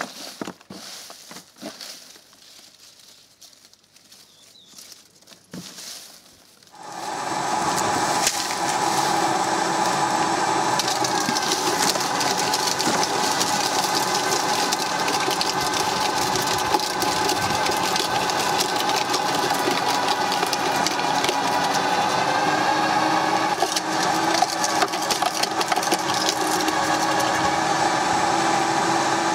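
Viking garden shredder starts up about a quarter of the way in and runs steadily with a whine, crackling and snapping as dry cane stalks are fed in and chipped.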